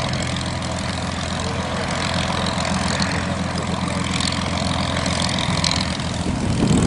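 Supermarine Spitfire's Merlin V12 piston engine idling as the fighter taxis, a steady low engine beat with the propeller turning slowly.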